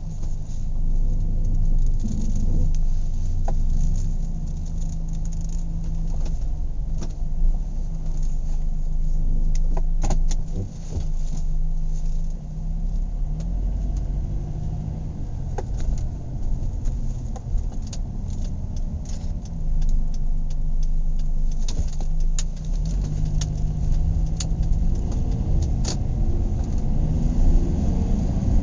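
Car interior while driving: a steady low engine and road rumble whose pitch steps up and down with the gears, with scattered small rattles and clicks from the cabin.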